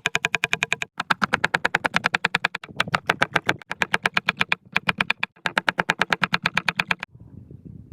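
Rapid, even tapping of a kitchen utensil during food preparation, about a dozen strokes a second in runs broken by short pauses, each stroke with a slight ringing tone. The tapping stops about a second before the end.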